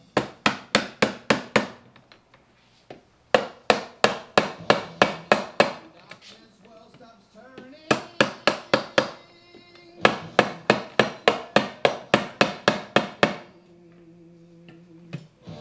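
Hammer tapping on BMW R1150GS gearbox parts during assembly: runs of quick, even strikes, about four a second, broken by short pauses.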